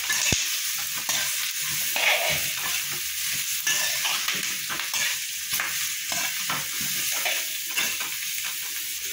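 Chopped onions and green chillies sizzling in hot oil in a metal kadai, stirred with a metal spatula that scrapes and clinks against the pan several times a second. The sizzle runs steadily under the uneven strokes of the stirring.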